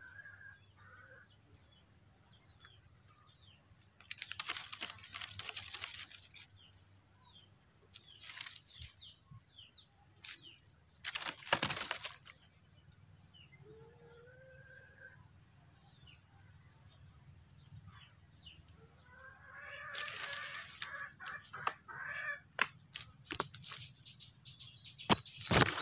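Several bursts of rustling noise, each lasting one to two seconds, separated by quieter stretches with faint bird chirps.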